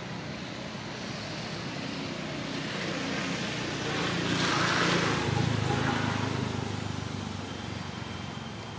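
A motor vehicle passing by: its noise swells to a peak about halfway through, with a low engine rumble, then fades away.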